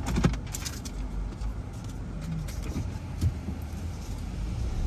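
Steady low engine and road rumble inside a van's cabin while driving, with a couple of knocks just after the start.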